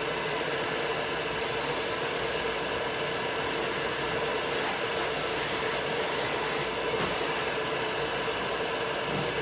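Dryer blowing steadily on a dog's coat, a constant rush of air with a steady motor hum.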